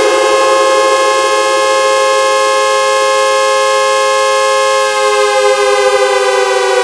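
Air-raid-style siren sound effect synthesized in Audacity, holding a steady wail at the top of its rise. About five seconds in it splits into two close tones and begins to fall slowly in pitch.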